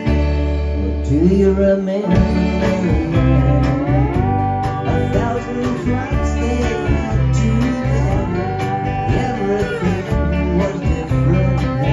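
Live band playing a song: electric guitars and drums, with a male voice singing.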